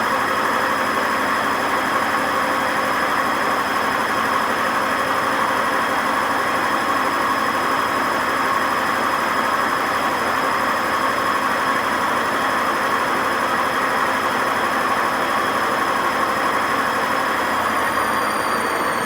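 Hotpoint WMA50 washing machine spinning, with a loud, steady grinding drone from badly worn drum bearings and a high whine over it. Near the end the whine starts to fall in pitch as the spin slows.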